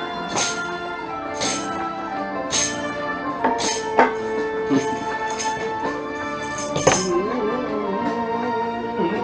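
Live instrumental passage of a Turkish art song: a melodic instrument plays held notes while a tambourine is shaken and struck about once a second. The tambourine stops about seven seconds in, just after a sharper hit.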